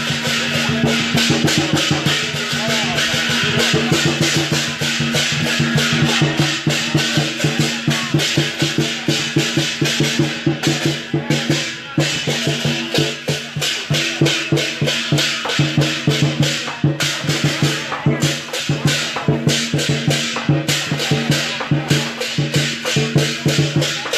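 Taiwanese temple procession percussion: a drum and cymbals beaten in rapid, continuous strokes, with low held tones underneath.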